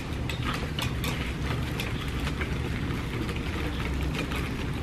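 Wheelchair being pushed over rough, uneven asphalt: light irregular clicks and rattles over a steady low outdoor rumble.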